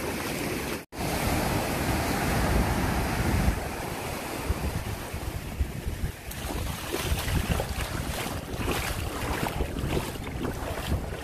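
Small ocean waves washing up and draining back over a sandy beach, with wind buffeting the microphone. There is a brief break in the sound about a second in.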